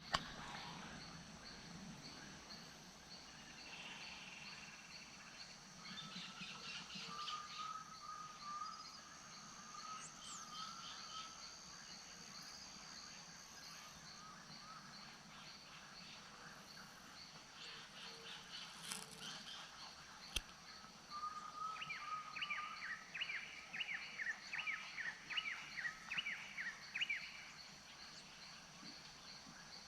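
Wetland wildlife ambience: several birds calling over a steady high-pitched drone. About two-thirds of the way in, a bird gives a run of about ten quick, repeated, downward-sliding calls that are the loudest part.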